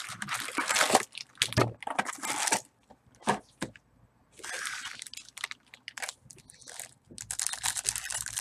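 Plastic wrap and foil trading-card packs crinkling and tearing by hand as a Bowman Chrome baseball box is opened: a run of short crackles, a longer rustling rip just after halfway, and dense crackling near the end.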